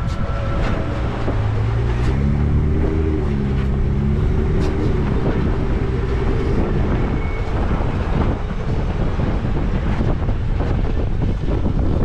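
Off-road vehicle driving on a dirt track, heard from a microphone mounted outside on its body: wind buffeting the microphone over a steady low rumble of engine and tyres. About two seconds in, the engine note rises as it picks up speed, holds for a few seconds, then fades back into the rumble, with small clicks of stones under the tyres.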